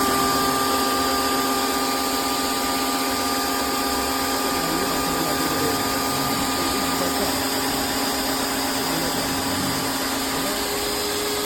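Greenworks 2100 PSI electric pressure washer's motor and pump running with a steady hum just after being switched on, without the trigger squeezed. The motor keeps running rather than shutting off with the trigger released.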